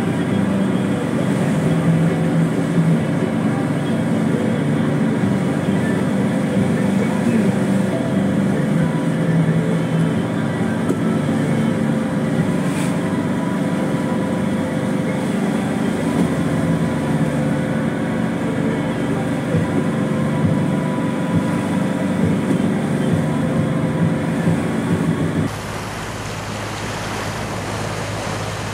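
Boat engine running steadily under load while towing another boat, with the rush of water from the wake. About 25 seconds in it changes abruptly to a quieter, steady low engine hum with water noise.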